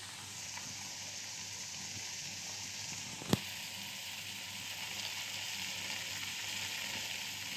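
Turmeric-coated shrimp sizzling steadily in a stainless steel pot, cooked dry with no water added. A single sharp click sounds a little past three seconds in.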